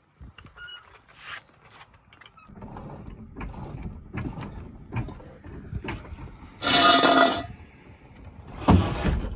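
Clicks, rattles and handling noises of hand tools and parts during work under a car, with two short, loud bursts of hissing noise near the end.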